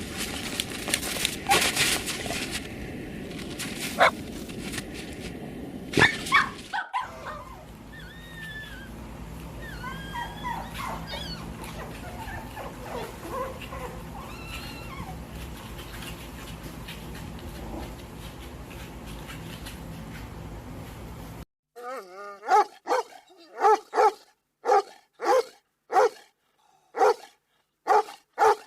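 Dogs barking and whining in a run of separate clips: first a few sharp barks over background noise, then high, sliding whimpers and yips, then a dog barking over and over at about two barks a second.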